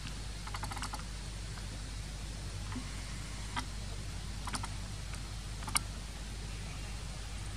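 A steady low rumble with scattered sharp clicks: a short run of them in the first second, then single ones about three and a half, four and a half and six seconds in, the last the loudest.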